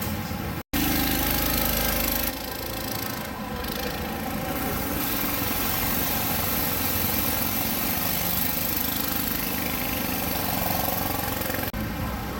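Go-kart engines running steadily as karts drive round the track.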